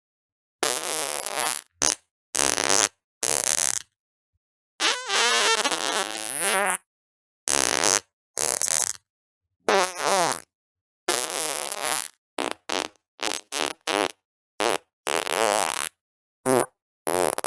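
A rapid string of separate fart sounds, about eighteen in all. Short pops alternate with longer buzzing ones that waver in pitch, the longest about two seconds near the middle. Each is cut off into dead silence before the next.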